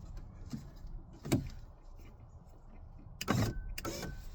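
BMW E34 power window motor running as the glass moves in its door tracks on a window regulator fitted with a 3D-printed roller slider. A sharp click comes about a second in, and near the end there are two louder scraping knocks.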